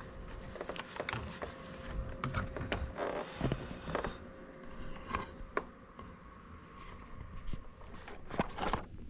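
Plastic steering column cover halves of a 2003–07 Cadillac CTS being pried apart by hand: scattered small clicks, snaps and scraping of plastic trim and clips.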